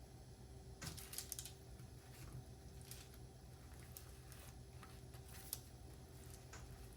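Faint, scattered light clicks and taps over a quiet, steady room hum, with a short cluster about a second in and a sharper single tap later on.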